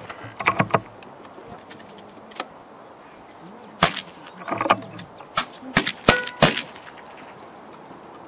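Air-rifle shooting sounds: sharp metallic clicks and clacks in irregular clusters, about ten in all, the loudest few with a brief ringing note.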